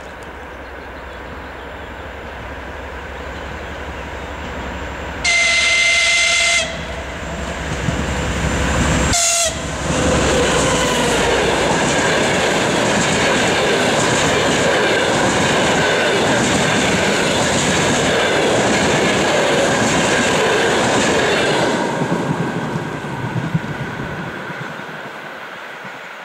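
A TEP70BS diesel locomotive hauling a passenger train: its engine rumble grows as it approaches, and its horn sounds once for a little over a second at about five seconds in. It then passes and the passenger coaches roll by with a steady clickety-clack of wheels over the rail joints, fading away near the end.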